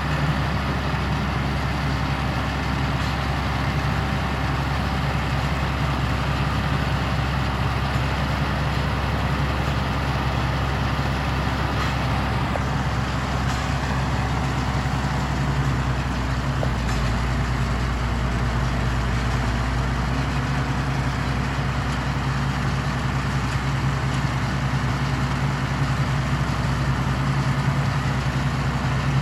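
Valtra 6300 tractor's diesel engine running at steady revs, with a steady haze of machinery noise above it.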